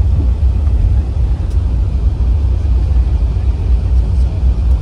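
Loud, steady low rumble heard inside the cabin of an Airbus A380 rolling down the runway just after touchdown, as the airliner decelerates on its landing rollout.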